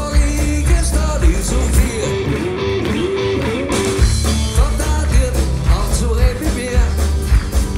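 Live band music: acoustic guitars, electric bass and keyboard, with a wavering melody line on top. The bass drops out for about two seconds midway, then comes back in.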